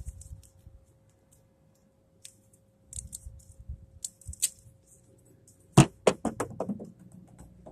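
Duct tape being handled and wrapped by hand, with scattered crinkles and clicks, then a loud sharp snap about six seconds in followed by a quick run of fading clicks.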